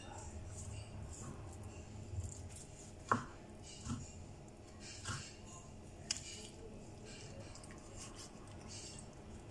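Kitchen knife cutting raw chicken breast on a wooden cutting board, scraping meat away from cartilage and bone, with a few sharp knocks of the blade on the board, the loudest about three seconds in and others near four, five and six seconds.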